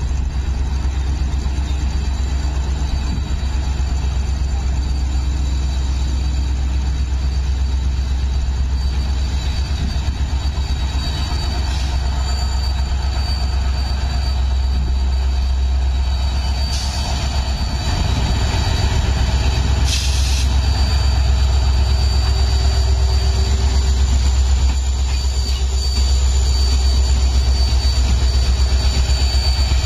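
Diesel locomotive engine running with a deep, steady rumble, growing louder about two-thirds of the way through as the locomotive draws near, with a few short hisses, likely from air brakes.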